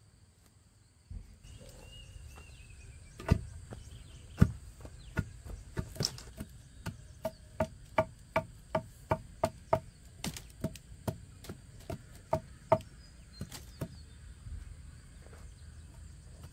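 A run of sharp chopping strikes on wood, irregular at first, then quickening to about three a second in the middle, each with a short ringing knock. A steady high insect drone sits underneath.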